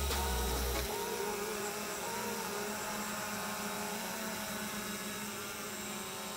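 Drone's motors and propellers whining steadily in flight, with slight wavers in pitch as the motor speeds change. A low rumble underneath stops about a second in.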